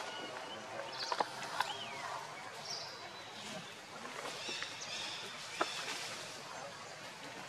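Baby macaque giving short high-pitched squeaks around the middle, over a steady outdoor background with a few sharp ticks.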